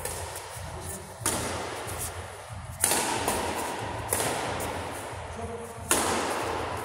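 Badminton rackets striking a shuttlecock in a doubles rally: sharp hits about a second and a half apart, each echoing on in a large hall, over a low steady hum.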